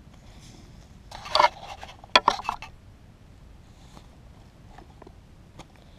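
Rustling and scraping of a net bird trap being handled, with a burst of scraping about a second in and a few sharp clicks just after two seconds.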